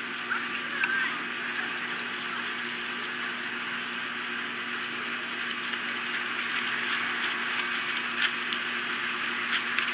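Steady outdoor hiss picked up by a nest-camera microphone, with a few faint bird calls about a second in and several sharp ticks near the end.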